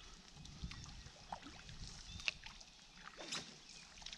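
Faint canoe paddling on calm river water: the blade dipping and pulling, water trickling and dripping off it, with a couple of sharper splashes about two and three seconds in.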